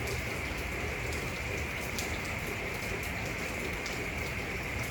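Steady rain falling outside: an even hiss with a few sharper drop taps.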